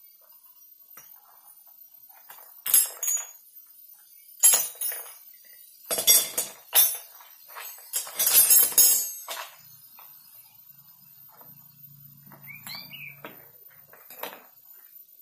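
Metal hand tools and engine parts clinking and knocking in a series of sharp, irregular clinks as a motorcycle engine is worked on by hand. The clinks are thickest in the middle stretch and die away after about nine seconds.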